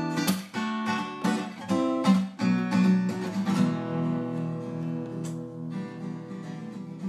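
Intro theme music on acoustic guitar: a run of quick strummed chords for the first couple of seconds, then chords left ringing and slowly fading.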